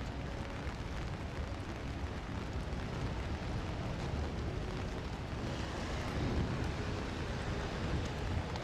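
Steady rain on a city street, an even hiss over a continuous low rumble.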